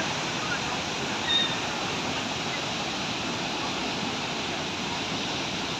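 Steady rushing of a waterfall close by, falling water crashing without a break.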